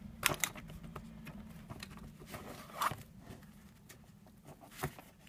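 Stationery being handled in a fabric pencil case: a plastic ruler and marker pens rustle and scrape against the mesh pocket, with a few sharp plastic clicks.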